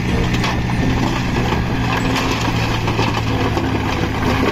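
Light dump truck's diesel engine running steadily while its raised bed tips out a load of rock and soil, with the rubble sliding and spilling out over the dropped tailgate.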